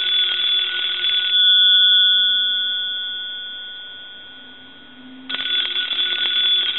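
The bell of a brass elephant novelty telephone rings. The rapid ringing stops about a second in, the bell keeps sounding and fades away, and the ringing starts again about five seconds in, in the telephone's ring cadence.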